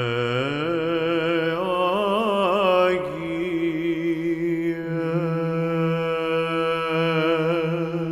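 Orthodox choir chanting in Byzantine style: lower voices hold a steady drone (ison) while the melody moves in ornamented, wavering turns above it.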